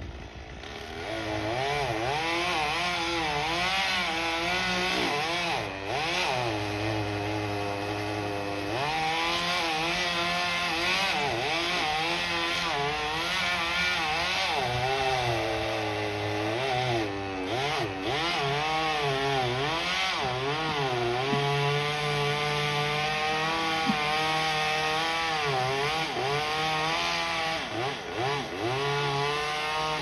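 Chainsaw cutting cedar elm wood, its engine speed rising and falling again and again as it bites in and eases off. It comes up to speed about a second in.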